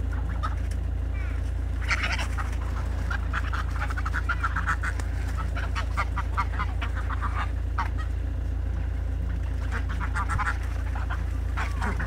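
A flock of greylag geese calling, with runs of short honks and cackles coming in bunches throughout, over a steady low rumble.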